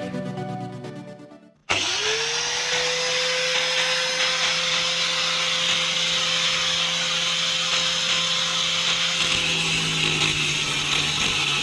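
Einhell TC-AG 125 850 W angle grinder switched on: its motor spins up quickly to a steady high whine over a loud hiss. Near the end the whine sags for a moment, then climbs back to speed.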